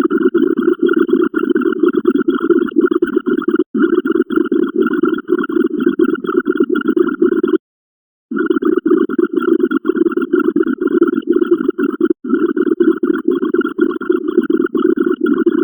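Rapid, fluttering, rumble-like sound effect with no speech or music, stopping for about half a second around the middle.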